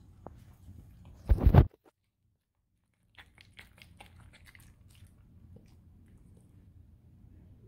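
Dog chewing and smacking its lips over a bite of hot dog with cheese, right up at the microphone. About a second and a half in, a single loud knock or blast hits the microphone, and the sound drops out completely for a moment before the wet chewing clicks resume.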